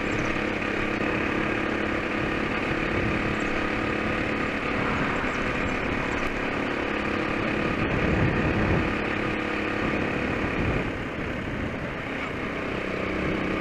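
Honda C70 70cc single-cylinder four-stroke motorcycle engine running at a steady cruise, a constant droning note with road noise. It eases off briefly about eleven seconds in, then picks up again.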